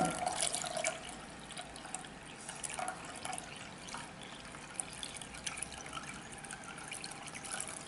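Warm milk mixture pouring from a saucepan into a bowl of egg yolks and cream: a faint liquid trickle with a few small ticks, louder in the first second and then settling.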